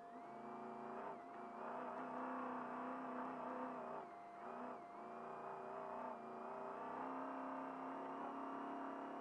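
Off-road trophy truck's engine under throttle, heard from inside the cab, revving as the truck picks up speed. It dips briefly twice, about a second in and again around four to five seconds in. A steady high hum runs underneath.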